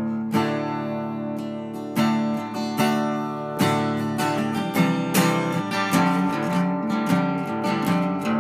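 Acoustic guitar music of strummed chords, with strokes every half second or so over sustained notes.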